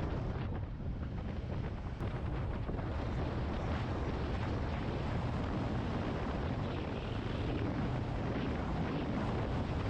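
Steady wind rush on the microphone of a Yamaha XT250 Serow riding at road speed, with the bike's single-cylinder engine and road noise running underneath.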